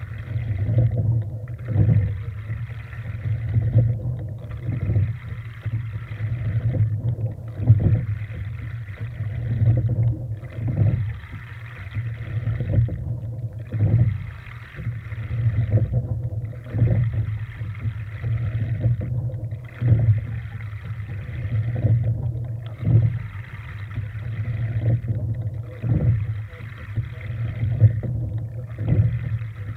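Sculling boat under way, rowed at a steady rate of about one stroke every two seconds: each stroke brings a knock from the sculls and a rush of water along the hull, over a steady low rumble.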